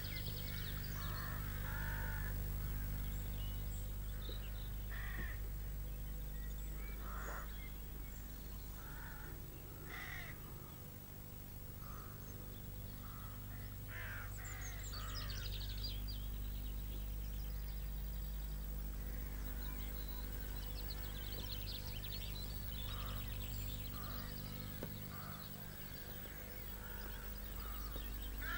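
Crows cawing now and then, with smaller birds chirping at times, over a steady low hum.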